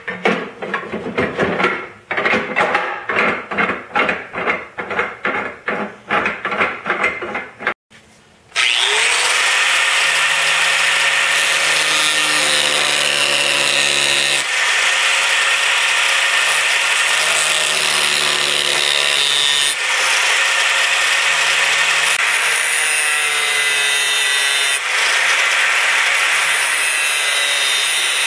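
Angle grinder spinning up and grinding a small steel part, a steady loud whine whose pitch wavers as the disc bears on the metal. Before it, for the first eight seconds or so, a rhythmic run of strokes at about two a second.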